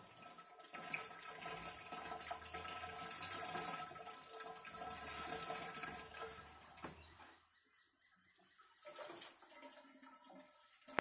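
Water pouring from a plastic watering can into upright PVC pipes, filling them with a steady splashing pour. It falls much quieter about seven seconds in.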